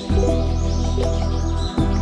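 Calm background music with a steady low bass and sustained chords, with small birds chirping over it in quick, repeated high chirps. The music changes chord about three-quarters of the way through.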